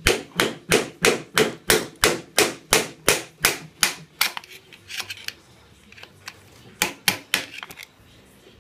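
Steel hammer rapidly tapping an old screwdriver against the outer bearing lock nut of a GM 14-bolt full-float axle hub to back the nut off. About four sharp metal strikes a second for roughly four seconds, then a few lighter taps and a short burst of strikes near the end. The nut is tighter than the owner likes, meaning the wheel bearing preload was set too tight.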